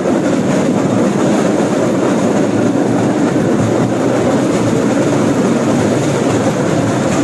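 Norry rail cart running along the track: a steady rattling rumble of its wheels on the rails.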